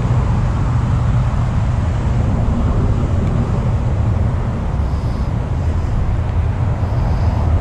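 Steady low rumbling background noise with no distinct events in it.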